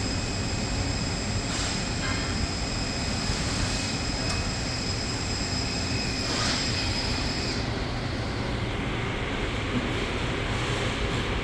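Doosan PUMA TT1800SY CNC turning center running under power: a steady mechanical hum with a thin high whine over it that cuts off about seven and a half seconds in.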